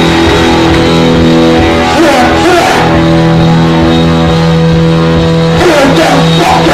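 Heavy rock band playing loud, with electric guitars holding long sustained chords and a few pitch slides.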